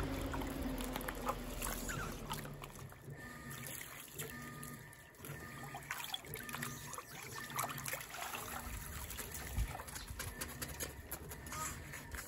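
Rice being washed by hand in a large stainless steel pot of water: sloshing and splashing as rubber-gloved hands rub the grains and lift dripping handfuls, with water trickling back into the pot.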